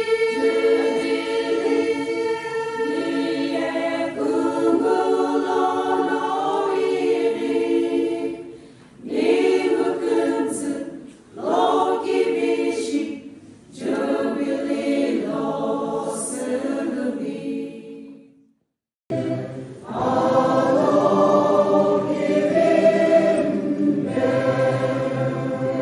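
A women's choir singing a hymn, phrase by phrase with short breaths between. After a brief cut to silence about 19 seconds in, a larger group with lower men's voices takes up the singing.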